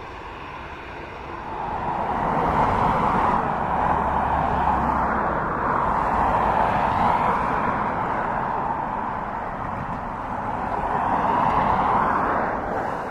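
Boeing 777 freighter's GE90 turbofan engines at taxi power, a steady rushing jet whine. It swells about a second and a half in as the aircraft passes close, dips slightly, peaks again, then drops near the end as the plane turns away.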